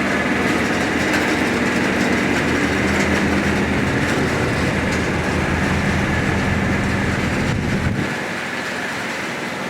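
S200 diesel shunting locomotive's engine running steadily as it hauls a slow-moving train over the rails. About eight seconds in, the deep engine drone drops away and the sound gets quieter.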